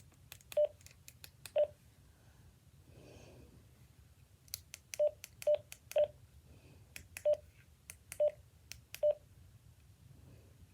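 Keypad of a Radioddity GD-77 handheld radio: eight button presses, each a small click with a short beep, in two bursts, two presses in the first couple of seconds, then six more a little less than a second apart.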